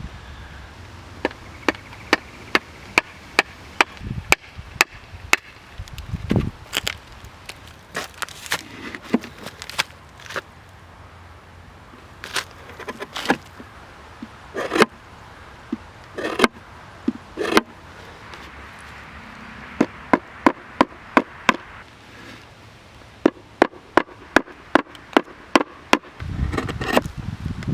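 Hand-tool chopping into an ambrosia maple bowl blank: sharp strikes of a steel edge into the wood, coming in runs of about two a second with short pauses between. Near the end a louder low rumble sets in.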